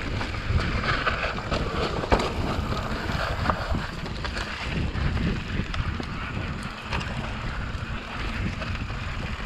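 Wind rushing over the camera microphone and mountain-bike tyres rolling over a dirt trail. Scattered clicks and knocks come from the bike rattling over roots and bumps, with one sharper knock about two seconds in.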